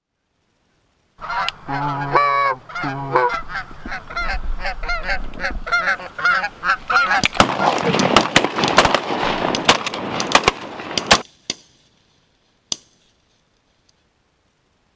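Flock of Canada geese honking as they fly in, with calls building into a dense, overlapping chorus. The chorus cuts off suddenly about eleven seconds in, and a single sharp crack follows shortly after.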